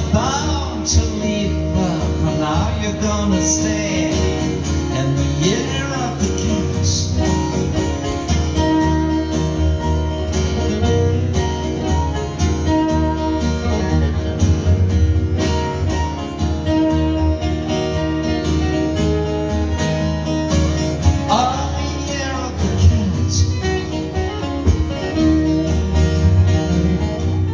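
Live amplified music from an acoustic guitar and an electric guitar playing together, a steady accompaniment under melodic lead lines with a few bent notes.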